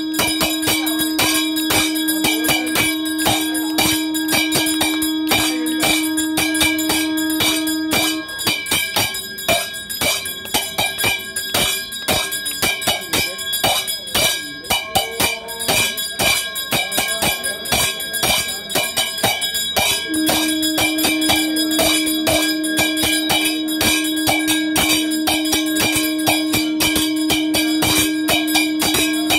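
Temple puja bells ringing with fast, continuous clanging strokes during the abhishekam and lamp offering, over a steady drone tone that stops about eight seconds in and returns about twelve seconds later.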